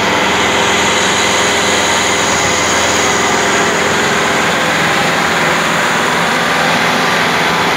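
Kubota MU5501 tractor's four-cylinder diesel engine running steadily at idle, heard close up: a smooth, even drone with no change in speed.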